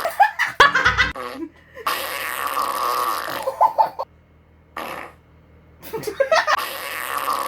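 Played-back fart sound effects: long, noisy fart noises lasting a couple of seconds each, with brief giggling between them and a quieter pause in the middle.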